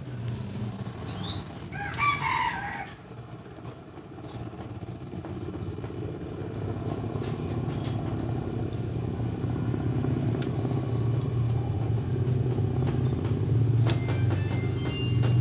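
Short high bird chirps and a brief rooster crow about two seconds in, over a steady low engine-like rumble that slowly grows louder. Scattered clicks and short high tones come near the end.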